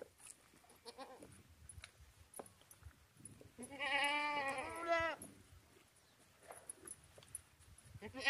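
A goat bleating: one long, wavering call about four seconds in, with another call starting right at the end.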